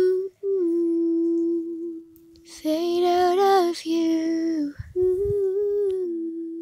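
A woman humming wordless held notes in short phrases. The loudest, brightest phrase is about three seconds in.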